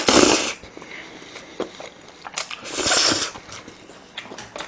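Oven spaghetti noodles slurped into the mouth with a loud hiss at the start, a second slurp about three seconds in, and chewing with small wet mouth clicks in between and near the end.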